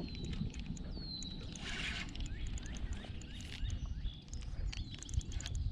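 A hooked fish being fought in shallow water: low rumbling water and handling noise with scattered clicks. A bird's short falling whistle recurs about three times over it.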